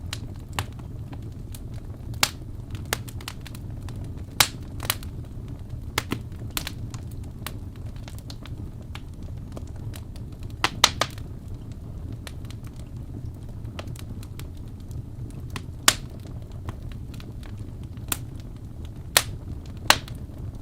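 Wood fire burning in a fireplace: a steady low rumble of the flames with irregular sharp crackles and pops, the loudest clusters about four seconds in, around eleven seconds, sixteen seconds and near the end.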